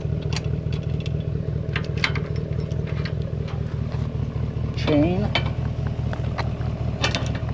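Ram 1500 pickup's Hemi V8 idling steadily, with light metallic clicks and clinks of trailer hitch hardware being handled, and a brief voice sound about five seconds in.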